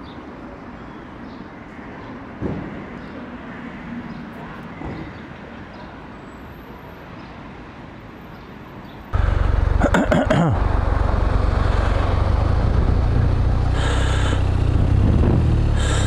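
Faint city street ambience with distant traffic, then about nine seconds in an abrupt change to a motorcycle riding through traffic, heard from the rider's helmet camera as a loud, steady low rumble.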